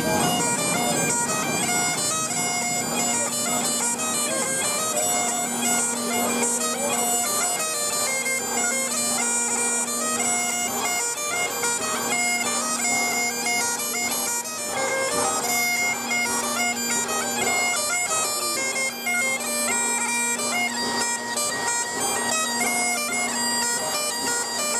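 Bagpipes playing a tune, the chanter's melody over a steady drone.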